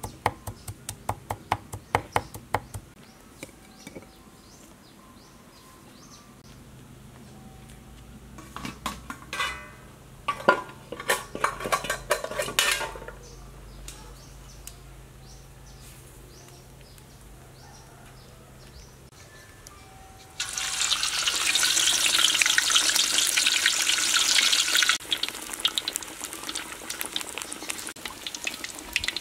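Pork belly frying in a wok of hot oil: a sudden loud sizzle about two-thirds of the way in, easing after some five seconds to a steadier crackle. Before it come clicks and knocks of a metal utensil against the pan.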